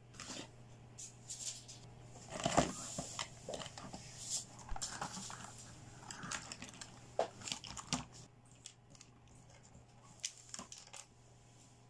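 Hands handling and setting down small plastic toy accessories, toy hair dryers and a plastic toy makeup palette case, with irregular light clacks, taps and rustling, loudest about two and a half seconds in. A faint steady low hum runs underneath.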